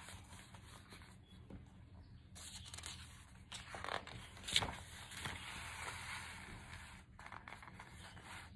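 Faint rustling of a paperback picture book's paper page being turned by hand, with one sharper paper sound about halfway through.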